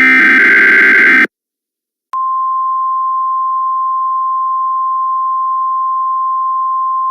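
An Emergency Alert System SAME header data burst lasting about a second, then a second of silence. A steady single-pitch alert tone near 1 kHz then starts and holds.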